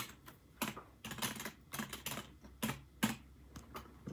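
Typing on a backlit computer keyboard: irregular key clicks, several coming in quick runs with short gaps between.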